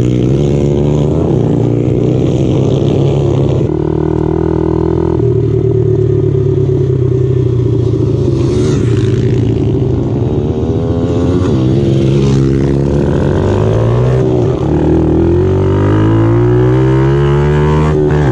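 A small pit bike's engine running under throttle while riding, its pitch rising and falling with the throttle and rising steadily near the end as it accelerates.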